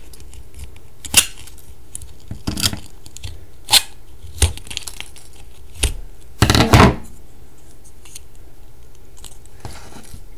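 Tin snips cutting thin bendable sheet metal, a handful of separate sharp snips, with small metal scraps dropping onto the table. A longer, louder metallic clatter comes about six and a half seconds in.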